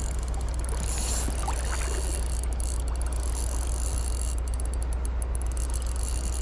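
Steady rush of flowing stream water, an even noise with a deep rumble underneath.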